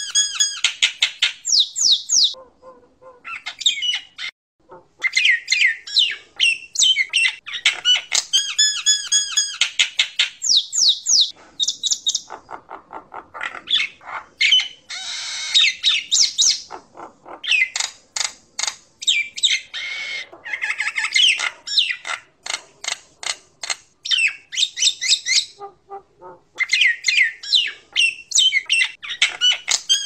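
Common myna singing: long runs of quick whistled and clicking notes mixed with harsh squawks and chatter, broken by a few short pauses.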